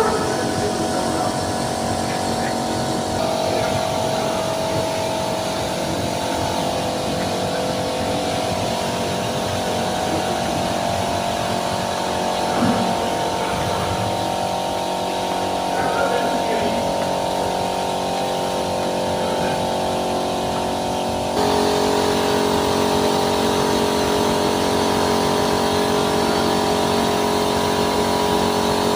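Automated car-washing machine running, a steady electric motor and pump hum with several fixed tones. About two-thirds of the way through, the sound steps up louder and its pitch changes as another part of the machine switches on.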